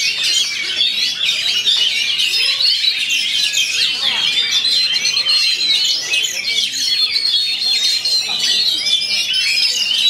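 Oriental magpie-robins singing together, a dense mass of overlapping chirps, trills and whistles, with one long high whistle held through the middle.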